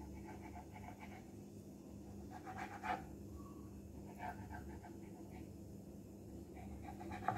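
Faint scrapes and taps of a knife cutting rolled dough on a wooden chopping board, with a cluster of them about two and a half to three seconds in and another near four seconds, over a steady low hum.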